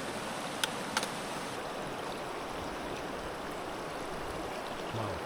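Mountain river water rushing steadily, with two short sharp clicks about half a second apart near the start.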